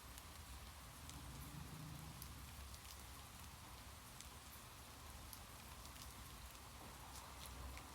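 Faint steady rain: an even hiss with many small scattered drop taps over a low rumble.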